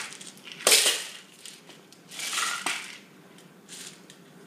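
Plastic lidded containers on plastic cups being handled on a hard countertop: two sharp plastic knocks near the start, then a short scraping rattle a little after two seconds in and a lighter tap near the end.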